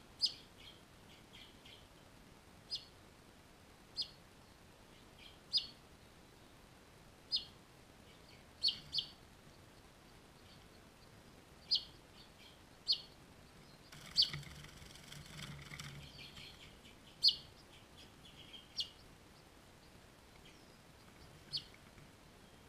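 Finches giving short, sharp, high single chirps every second or two, about a dozen in all. There is a soft rustling hiss for about two seconds midway.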